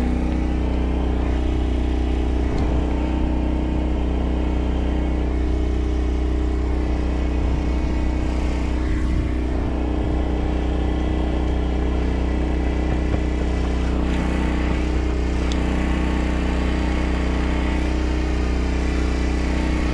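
A steady, unchanging engine-like drone with a deep rumble beneath it.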